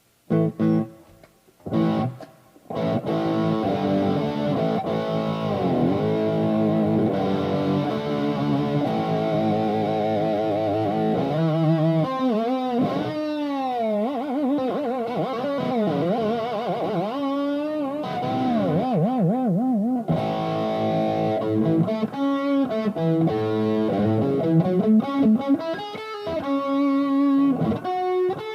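1978 Fernandes FST-50 electric guitar played through an amplifier with a light drive: a few short stabbed notes, then sustained chords and notes with wobbling vibrato and wide pitch swoops through the middle.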